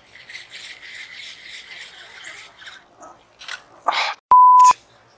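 Spinning reel cranked for about two and a half seconds, a fast whirring rattle. Near the end a short word is cut off by a loud single-tone censor bleep.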